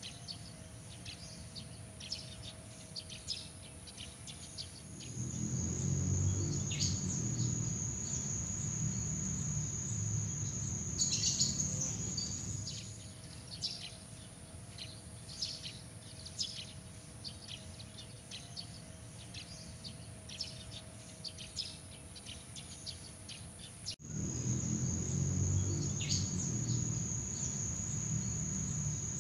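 Night-time nature ambience: a steady high-pitched insect trill with many quick chirps over it. A low rumble swells in twice, the second time after an abrupt cut.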